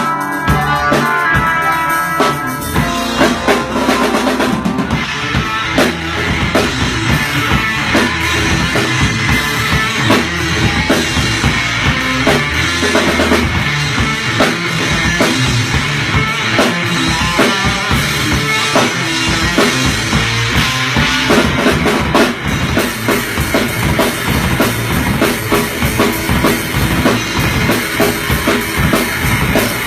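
Rock music with a full drum kit driving a heavy bass drum under guitar. The cymbals get brighter and fuller about two-thirds of the way through.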